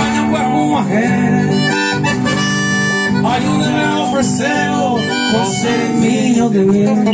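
Small live band playing: a piano accordion carries the melody over two strummed guitars.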